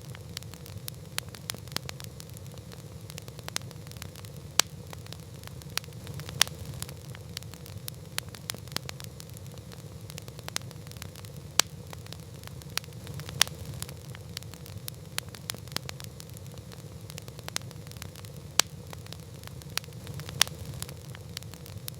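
Wood campfire crackling: frequent small snaps and a handful of loud sharp pops over a steady low rumble of the burning fire, with a faint steady hum underneath.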